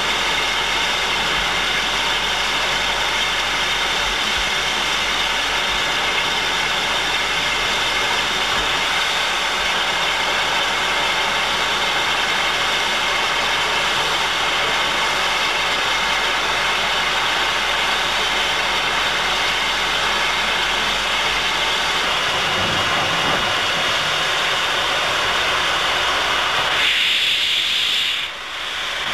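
McCloud River Railroad No. 19 steam locomotive standing with a steady hiss of steam. About 27 seconds in its cylinder cocks open, and the hiss grows sharper and stronger as steam blasts out at the front.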